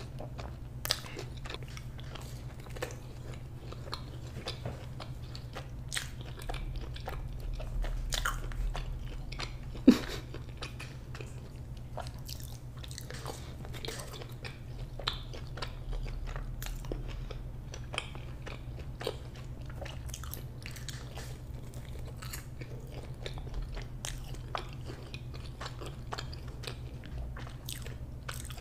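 A person eating close to the microphone: repeated biting and chewing with crunchy, clicking mouth sounds over a steady low hum. There is one sharper snap about ten seconds in.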